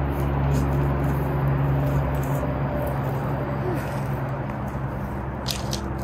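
A steady low mechanical hum, louder for the first two seconds and then easing off, with a few light clicks near the end.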